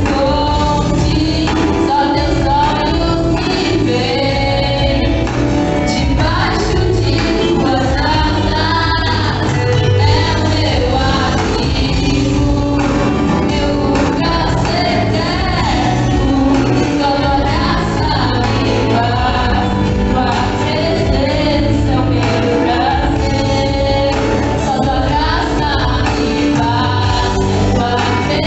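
Gospel music: a song with singing over a band, with steady bass and continuous vocal melody.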